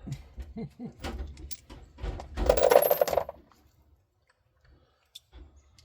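Small metal tools and parts clinking and rattling as they are handled, with a louder rattling clatter about halfway through, then a few faint ticks.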